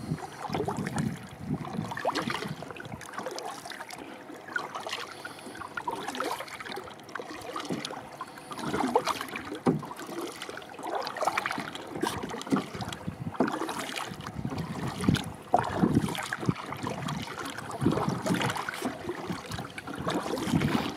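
Water lapping and splashing against a kayak, in irregular short splashes over a steady wash.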